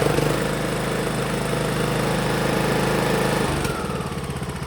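The 18.5 hp Briggs & Stratton engine of a lawn tractor runs steadily, freshly started now that a new fuel shut-off solenoid lets fuel reach the carburettor. About three and a half seconds in, its note changes and it runs down.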